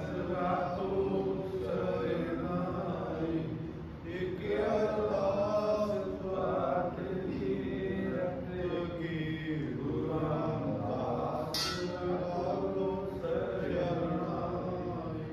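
A man's voice chanting Gurbani, Sikh scripture, in a slow melodic recitation of long phrases.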